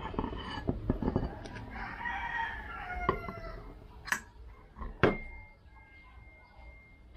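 A rooster crows once, a rising and falling call about two seconds in. Around it, the steel parts of a Honda PCX torque drive clink as the inner collar is worked out of the driven pulley, and the loudest clink, about five seconds in, leaves a thin metallic ring for about two seconds.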